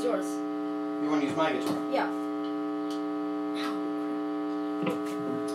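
Steady electrical mains hum, a buzz made of several held tones at one level, with a few faint clicks and murmurs passing through it.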